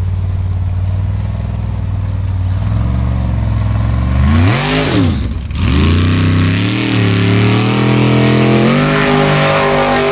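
Formula offroad buggy's racing engine idling with a lumpy beat, then revved hard, rising and falling sharply about four to five seconds in, then held at high revs and pushed higher near the end.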